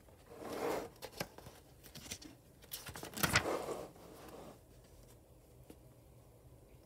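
Paper pages of a book being handled and turned: two rustling swishes, the louder one about three seconds in, with a few small clicks of paper.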